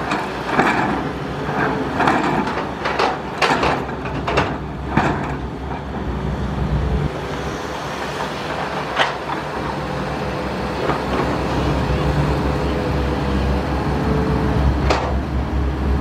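Hydraulic excavator's diesel engine running under load as it digs and swings buckets of dirt to a dump truck, with a steady hum over the engine. Short sharp knocks come in the first few seconds and again about nine and fifteen seconds in, and the engine grows louder in the second half.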